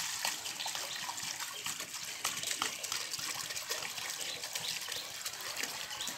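Pot of biryani masala gravy on a wood fire, simmering: a steady bubbling hiss with many small pops and crackles.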